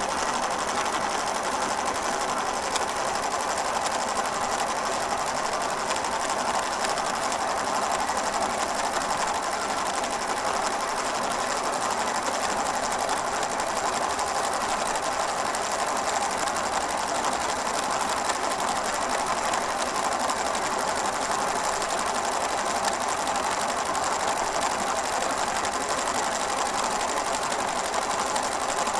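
Film projector running, a fast steady mechanical clatter that does not change.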